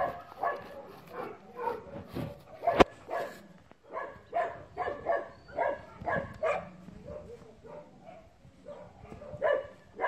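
Dog barking repeatedly in short calls, with a sharp click about three seconds in.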